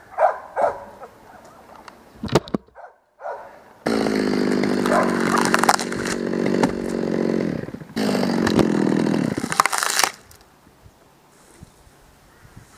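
Chainsaw at full throttle in two runs, one of about three and a half seconds and one of about two seconds. Its pitch drops slightly during the first run, and it stops abruptly about ten seconds in. A few short, sharp sounds come before it.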